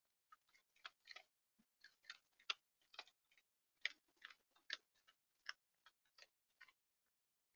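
Virginia opossum crunching scattered dry food close to the camera: a quick, irregular run of short, crisp crunches and clicks that stops about a second before the end.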